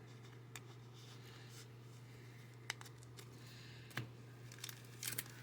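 Faint clicks and taps of trading cards and packs being handled over a low steady hum, then a foil booster pack wrapper starting to crinkle near the end.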